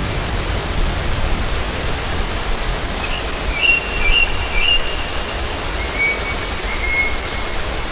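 Steady rain falling, an even hiss of drops. A bird chirps several times about three seconds in, and gives a thinner, drawn-out call around six seconds in.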